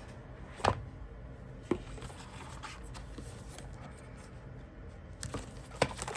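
Tarot and oracle cards being handled: soft rustling with a few sharp taps as cards are set down.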